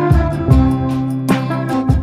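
Background music: sustained instrumental notes with drum hits recurring every half second or so.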